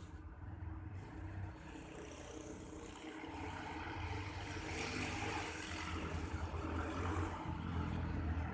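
Alsthom diesel-electric locomotive approaching with its train, a low engine rumble and rolling noise growing steadily louder.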